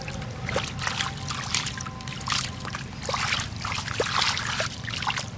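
Hands groping and sloshing through shallow muddy water: an irregular run of wet splashes and squelches, over a steady low rumble.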